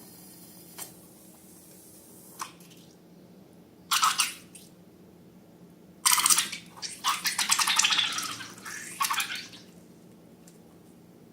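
Slime being squeezed and stretched by hand: a short wet, sticky squelch about four seconds in, then a longer run of crackling, popping squelches lasting about three seconds.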